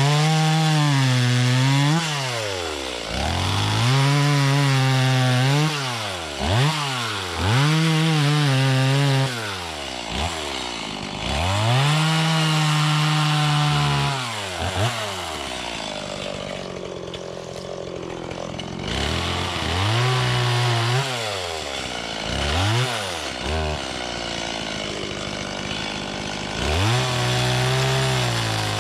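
Stihl MS170 two-stroke chainsaw bucking a felled trunk into logs. The engine revs up to full throttle for each cut and falls back to idle between cuts, several times over, with a longer idle about halfway through.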